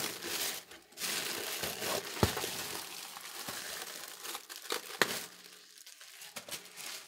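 Plastic packing cushion crinkling and rustling as it is pulled out of a PC case, the rustle thinning out toward the end. Two sharp clicks cut through it, one about two seconds in and one about five seconds in.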